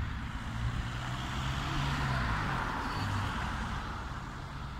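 A car passing on the street: tyre and engine noise that swells to a peak about two seconds in, then fades away.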